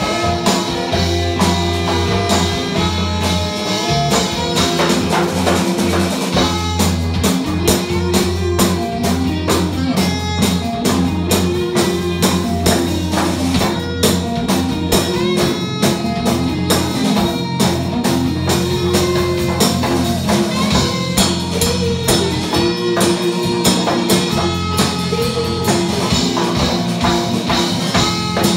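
A live band playing with electric guitars over drums and percussion, in a steady rock groove.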